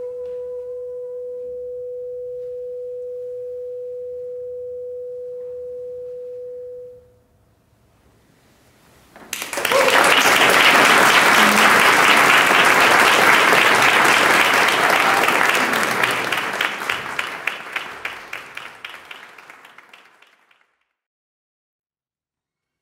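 A single steady held note fades out about seven seconds in. After a short pause, an audience breaks into applause. The applause starts suddenly and is the loudest sound here, then thins out into a few last claps and stops.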